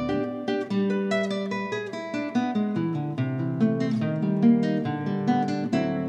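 Solo nylon-string classical guitar played fingerstyle: a quick, steady stream of plucked melody notes ringing over bass notes that change every second or two.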